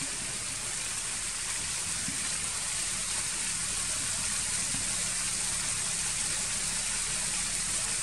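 A small waterfall pouring in a thin fall down a rock face: a steady rush of splashing water that grows a little louder over the first few seconds.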